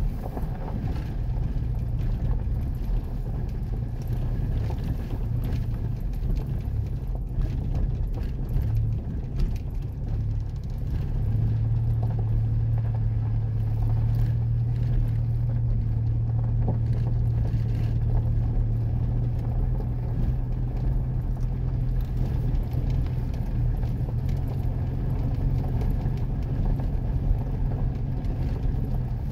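Vehicle engine and tyre noise heard from inside the cab while driving slowly over a gravel dirt track: a steady low drone that grows stronger for a stretch in the middle, with scattered small knocks from the rough surface.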